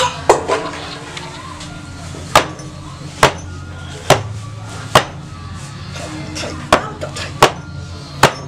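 Sharp knocks on a wooden tabletop, about ten, spaced unevenly roughly a second apart, over low background music.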